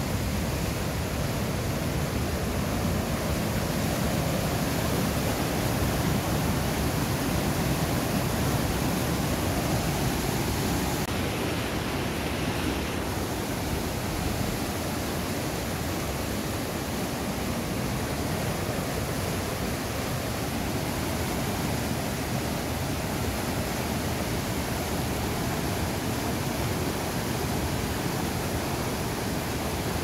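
Fast mountain-stream whitewater rapids rushing over boulders: a steady, even, full rushing noise of turbulent water.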